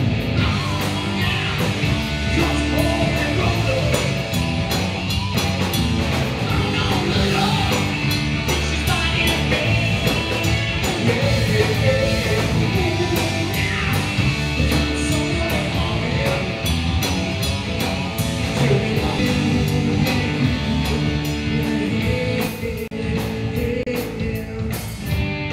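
Live rock band playing: electric guitar, bass and drum kit with cymbals, loud and steady.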